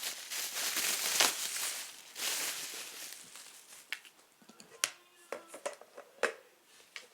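Rustling and crinkling, like paper or packaging being handled, for about the first three seconds, then a series of light, sharp clicks and taps, some with a short ring.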